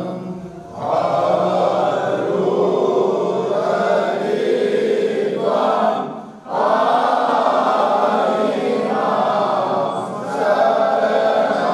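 A group of voices chanting a Sanskrit hymn together in unison, pausing briefly for breath about half a second in and again around six seconds in.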